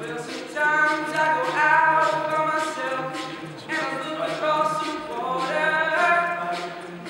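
All-male a cappella group singing in harmony over a steady low bass line, with vocal percussion keeping a beat of about two sharp hits a second. The voices swell about half a second in.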